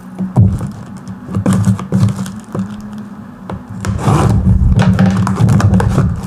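Hands rubbing, tapping and scraping over a cardboard courier box with a plastic-sleeved shipping label, in irregular rustles and knocks that get louder about four seconds in.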